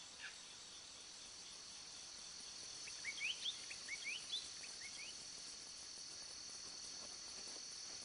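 Steady high chorus of crickets or other night insects. A quick run of about eight short rising chirps comes between three and four and a half seconds in.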